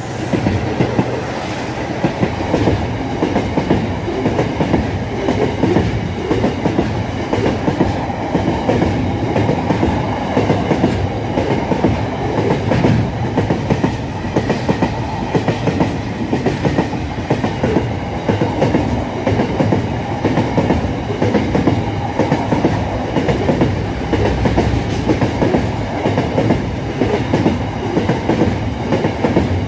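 Freight train wagons passing at speed, with a steady clatter of wheels over the rail joints throughout.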